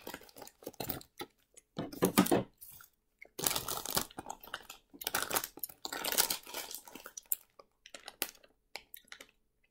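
A plastic candy bag crinkling and tearing as it is slit open and handled, loudest in a long stretch through the middle, with chewing of a tough gummy candy mixed in.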